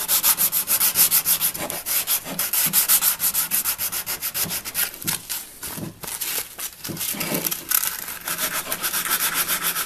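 Sandpaper rubbed by hand in quick back-and-forth strokes over an old wooden hand saw handle, sanding off flaking paint and old finish. The strokes weaken and slow for a couple of seconds past the middle, then pick up again.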